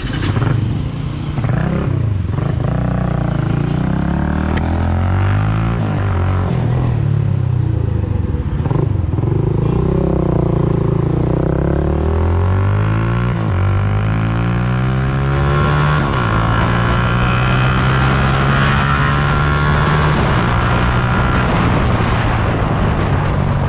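Hi Speed Infinity SR-150's 150cc engine pulling away and accelerating through the gears. Its pitch climbs and drops back at each upshift, several times over, then holds fairly steady at cruising speed.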